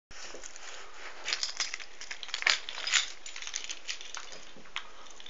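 Rustling and crackling handling noise from a handheld camera on the move, with scattered clicks over a steady hiss; two sharper clicks come about two and a half and three seconds in.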